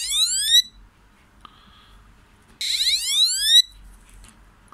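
Electronic warning sounder of a model railway level crossing giving a rising whoop-like tone about a second long, repeating about every three seconds: one tone ends about half a second in and the next sounds from about two and a half to three and a half seconds in. It signals that the crossing barriers are closed.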